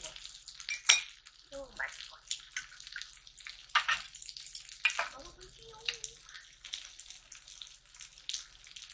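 Sausages and vegetable skewers sizzling and crackling on a hot griddle pan, with a few sharp clicks of utensils against the pan.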